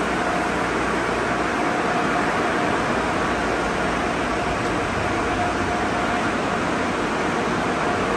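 Car wash spray jets hissing and spattering steadily on a car's roof and windows, heard from inside the car, over the steady hum of the wash tunnel's machinery.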